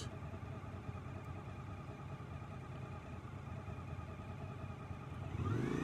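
Suzuki V-Strom 1000's V-twin engine idling steadily, then rising in pitch as it revs up near the end.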